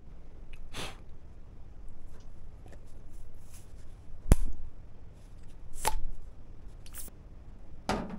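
A handful of separate sharp knocks and clicks, the loudest and sharpest about four seconds in.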